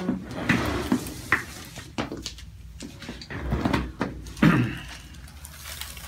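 Handling noise from a patient being positioned on a chiropractic table: rustling of hands, hair and the paper-covered headrest, with a few soft knocks, the loudest about four and a half seconds in.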